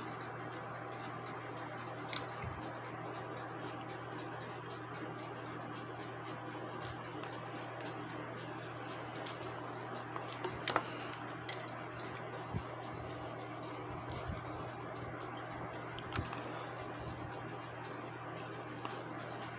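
Scattered small metallic clicks and taps as pliers work at the wire pin through the minute arbor of a 1950 Schatz cuckoo clock movement, with a cluster of louder clicks a little past halfway. A steady low hum runs underneath.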